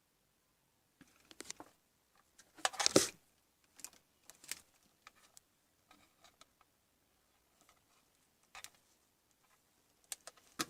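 Scattered light clicks and knocks of small hard objects being handled, irregular, with the loudest cluster about three seconds in.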